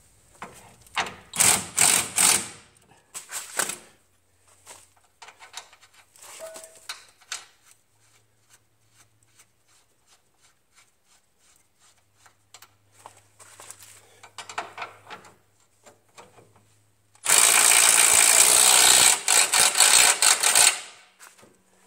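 A 19 mm control-arm bolt being run in: a few loud bursts of tool clatter at first, then a hand ratchet clicking evenly for a long stretch, and near the end a power wrench running hard for about three and a half seconds.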